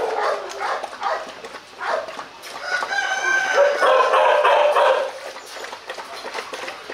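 A rooster crowing: one long call of about two and a half seconds, starting about two and a half seconds in. Underneath, dogs lap water from a steel bowl with soft, repeated wet clicks.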